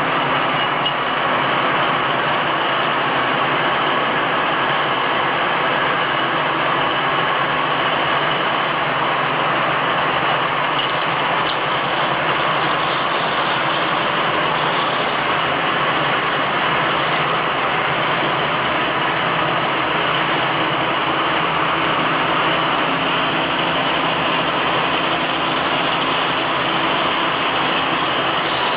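Automatic glass bottle washing machine running: a steady, even mechanical noise with no breaks.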